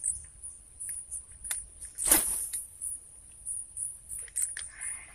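Insects chirping in a steady, high-pitched pulsing trill, with faint scattered clicks and one short, loud noisy burst about two seconds in.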